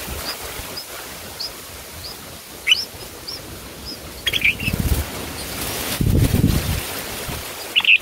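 Bulbuls chirping: soft, short, high chirps about twice a second, with a few louder calls about three, four and a half and eight seconds in. Low rumbles twice in the second half.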